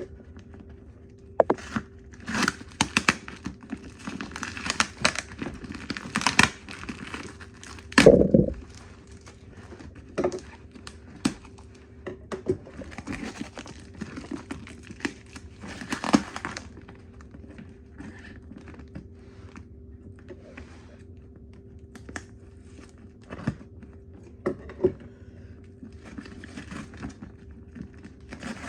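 Cardboard package being opened by hand: bursts of tearing and crinkling packing material with scattered knocks and a heavier thud about eight seconds in. After about sixteen seconds only occasional light handling clicks.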